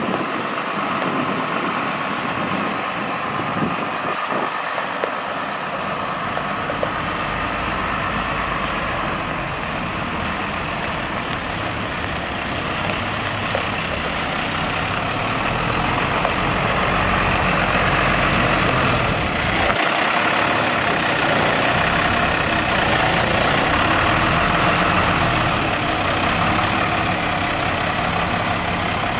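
International 4700LP truck's DT360 inline-six turbo diesel running steadily at idle, getting louder about halfway through.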